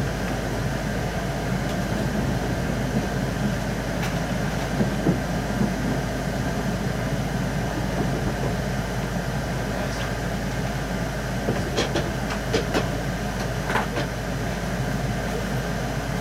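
Keihan electric commuter train running, heard from inside the passenger car: a steady rumble of wheels on rail and motor hum, with a few short clicks or rattles about ten to fourteen seconds in.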